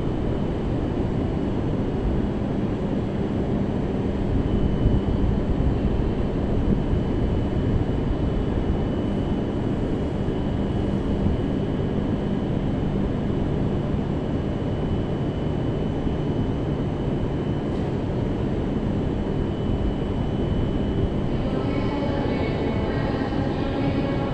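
Tohoku Shinkansen train pulling into a station platform: a steady rumbling running noise with a low hum and a thin high whine. Several higher tones join near the end.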